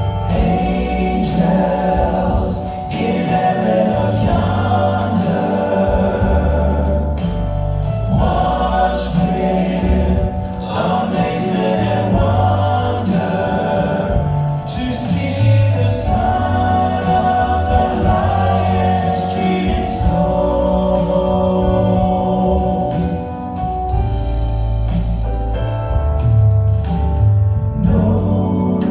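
A vocal group singing a gospel-style song in harmony, backed by a band with bass, keyboard and drums.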